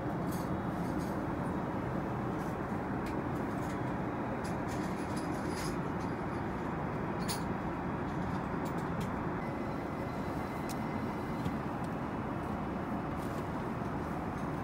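Steady cabin noise of an Airbus A380 in flight: an even rushing hum of airflow and engines that holds at one level throughout, with a few faint clicks over it.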